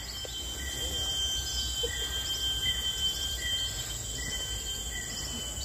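Forest insects droning steadily in high, thin tones, with a short chirp repeating about every three-quarters of a second and a low rumble underneath.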